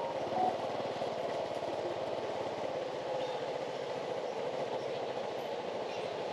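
Steady low mechanical hum of street background noise, with a fine fast pulsing in the low end and no distinct events.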